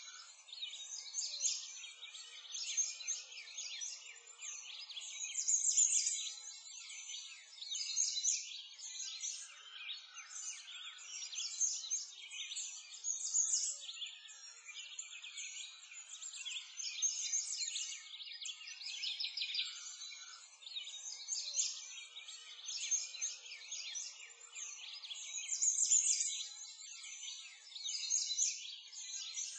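Dense chorus of small songbirds chirping and twittering without pause, swelling louder every several seconds.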